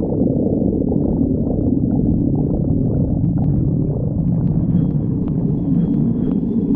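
A person's stomach growling: one continuous, low-pitched rumble with no pauses, and a few faint clicks in the second half.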